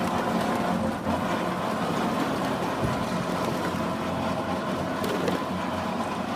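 Horizontal baler's hydraulic power unit running with a steady hum.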